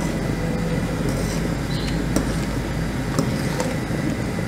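Steady low hum of background noise, with a few light clicks of a metal spoon against a stainless steel pot as a simmering stew is stirred.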